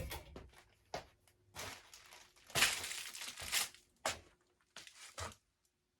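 Irregular bursts of rustling and crinkling handling noise, the loudest about two and a half to three and a half seconds in, stopping about a second before the end, over a faint steady hum.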